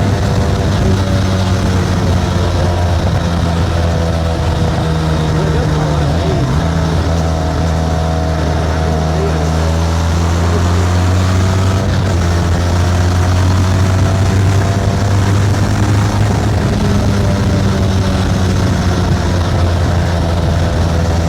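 Benelli TRK 502's parallel-twin engine running through its stock exhaust at fairly steady revs while the bike is ridden, the pitch drifting slightly up and down.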